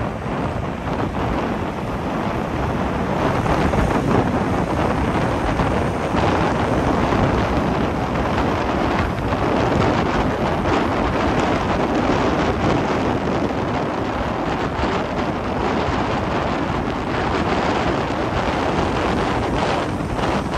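Steady wind noise on the microphone of a camera moving along a road, with the rush of road traffic underneath.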